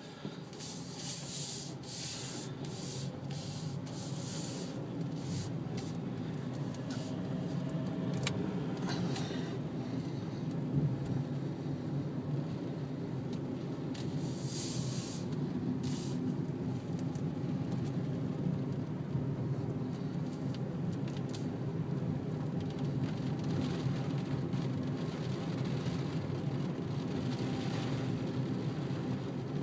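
Sandstorm wind blowing hard: a steady low rush with gusts of hiss, several of them in the first half.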